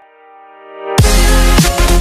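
Electronic dance music: a sustained keyboard chord fades out under a rising swell, then about a second in the track drops in loudly with heavy bass and a pounding drum beat.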